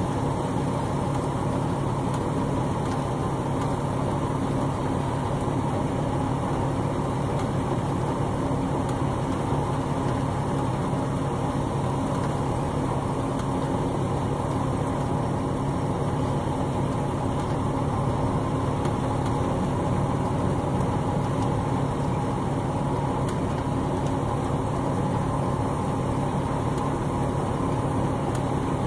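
Truck engine idling steadily, a constant hum that holds one pitch throughout.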